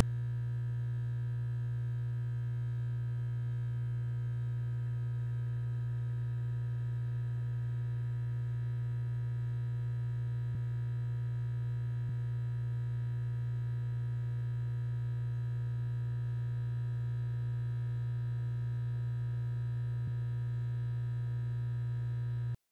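A steady low hum, one unchanging tone with faint higher overtones, held throughout and cutting off suddenly near the end.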